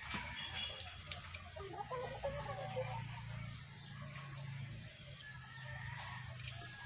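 Chickens clucking, with short calls scattered through a low, steady background hum.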